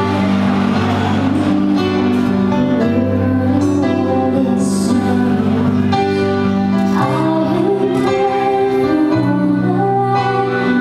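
Live acoustic guitar accompanying a woman singing a slow ballad.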